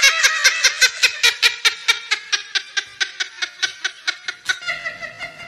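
High-pitched laughter in a rapid, even run of 'ha-ha' pulses, about five or six a second, loud at first and weakening until it stops about a second before the end.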